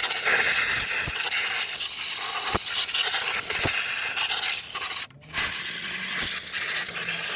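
Compressed air blowing dust and debris off the top of the engine around the intake manifold: a steady hiss that stops briefly about five seconds in, then resumes.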